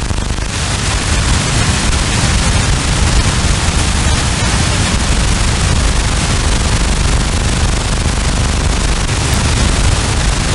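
Shortwave software-defined radio receiver's audio output giving loud, steady static and hiss, heaviest at the low end, while it is tuned across the 20 to 24 MHz band. The uploader takes this for man-made interference across all bands.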